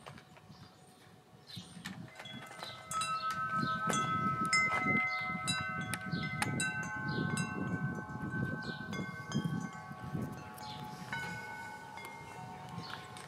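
Chimes ringing: many struck metallic tones of different pitches start one after another and ring on, overlapping, over a low rumble. They get louder about three seconds in.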